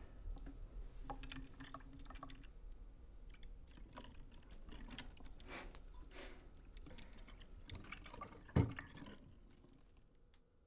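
Water poured from a plastic jug over someone's head in a bathtub, splashing and trickling into the bathwater in uneven gushes. Near the end a single dull thump, the jug set down on the tub's rim.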